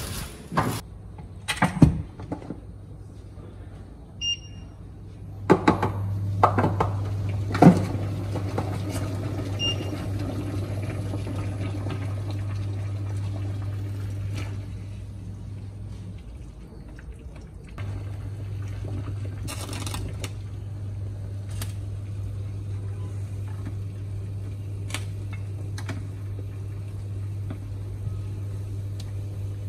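A kitchen appliance hums steadily, stops for a moment about halfway through, then starts again. Knocks and clinks of utensils and cookware come over it, with two short electronic beeps early on.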